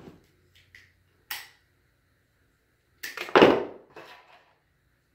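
White plastic armor pieces being handled: a single sharp tick about a second in, then a loud rustling clatter lasting about a second and a half, starting about three seconds in.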